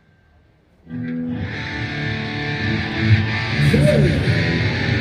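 A live rock band playing a heavy riff on distorted electric guitar during a sound check. The riff starts abruptly about a second in, after a moment of near silence.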